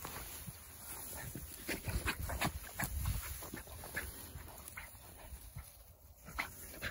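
Dry tall grass rustling and crackling in quick, irregular clicks as beagle puppies push through it on a scent trail, with the footsteps of someone walking after them.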